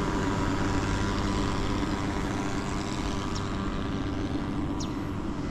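Thermal mosquito-fogging machine running with a steady engine-like buzz while it puts out insecticide smoke against dengue mosquitoes.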